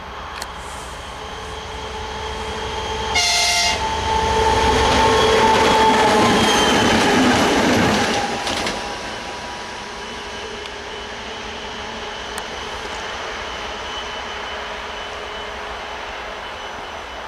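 A two-section 2TE116 diesel locomotive running light passes close by. It gives one short horn blast about three seconds in. Its engine and wheels grow loud as it goes past, then fade to a steady running sound as it draws away, the engine note dropping slightly in pitch.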